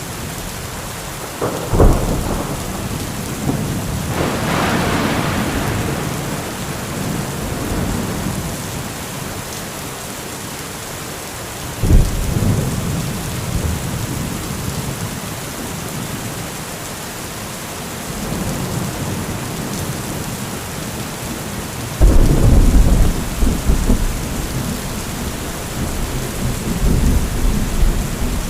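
Heavy rain falling steadily through a thunderstorm. Two sharp thunder cracks, one near the start and one about halfway, each tail off into rumbling, and a long, loud low rumble of thunder sets in about two-thirds of the way through.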